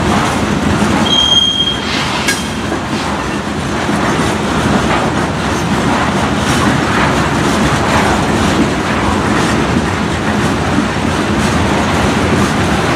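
Freight train's open-top hopper cars rolling past, a loud steady rumble and clatter of steel wheels on rail, with a brief high-pitched squeal about a second in.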